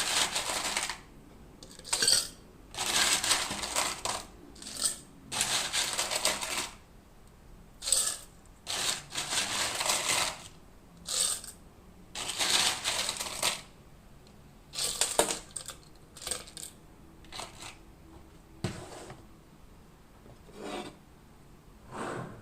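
Repeated short bursts of hard clinking and rattling, each lasting up to about a second and a half, with quiet pauses between them, fading to fewer and fainter bursts near the end.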